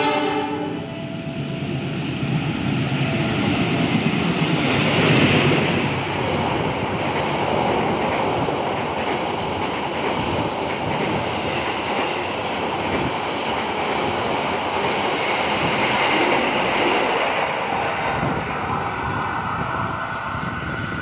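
KA Taksaka express passenger train passing at speed on the adjacent station track: a long, steady rush and clatter of wheels on rails, loudest about five seconds in.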